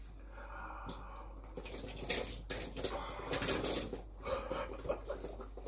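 Baked beans tipped over a man's head: an irregular run of wet splats and clicks, starting about a second and a half in.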